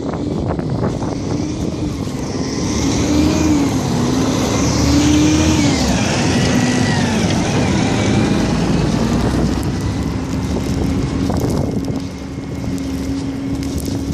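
A motor vehicle's engine running, its pitch rising and falling for several seconds and then holding steady, over a steady hiss.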